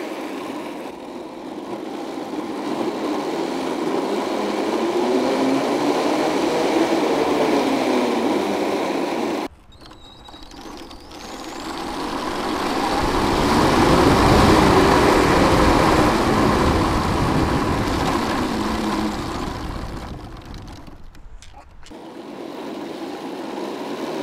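Electric drive motors and tracks of a 25 kg 3D-printed tank running, the motor whine rising and falling in pitch as it speeds up and slows over the noise of the tracks. The sound drops away suddenly about ten seconds in, builds back to its loudest a few seconds later, and dips again near the end.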